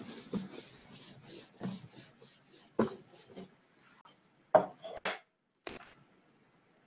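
Handling noise close to the microphone: irregular rubbing and scraping for the first few seconds, then four sharp knocks, the loudest about four and a half seconds in.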